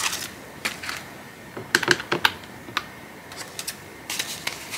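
Paper banknotes being counted by hand, with irregular light clicks and paper flicks as bills are peeled off the stack, and taps on a desktop calculator's keys.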